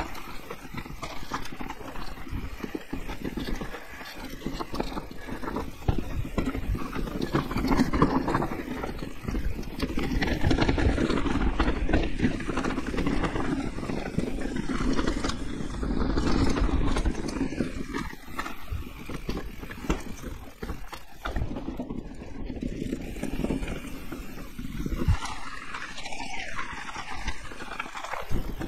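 Electric mountain bike descending a rough trail: tyres rumbling over dirt, roots and rocks, with the frame and chain rattling in a constant clatter and wind rumbling on the microphone. It gets louder through the middle.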